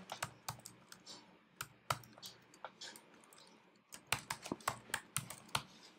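Typing on a computer keyboard: scattered key clicks, then a quicker run of keystrokes about four seconds in.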